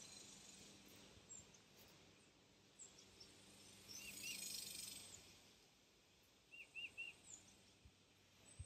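Near-silent outdoor quiet with faint bird chirps: short high calls in clusters of two or three, about four seconds in and again near the end, and a soft rustle in between.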